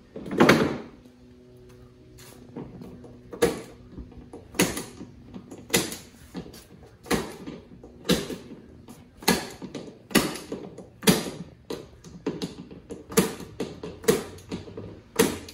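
Glazier's point driver shooting points into a wooden window sash to hold the glass: a series of sharp metallic clacks, roughly one a second, with a louder clack about half a second in. A faint steady hum lies underneath.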